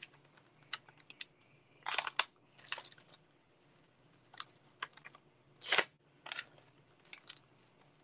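Small plastic parts bags being torn open and crinkled by hand, with the small parts (coil springs and plastic shock pieces) tipped out clicking onto the table. A run of scattered crinkles and clicks, the loudest bursts about two seconds in and near six seconds.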